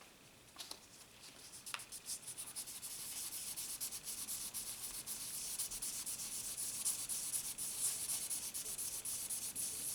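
Fine-grit sandpaper rubbed by hand over a pocket knife in quick back-and-forth strokes: a fast, even scratching that starts about two seconds in, after a couple of light clicks.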